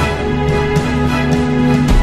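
Background music: held chords, changing to new notes at the start and again near the end.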